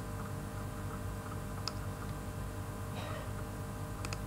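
Steady electrical hum and buzz in the recording, with a few faint sharp clicks, one about halfway through and a quick pair near the end.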